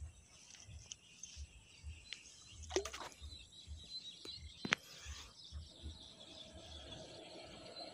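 Outdoor riverside ambience: faint bird chirping and low wind rumble on the microphone. A few sharp clicks and knocks are heard, with a brief falling swish about three seconds in.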